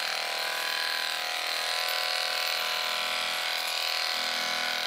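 Masterclip corded electric dog clippers running steadily with a constant buzz as they clip a Bedlington terrier's curly coat.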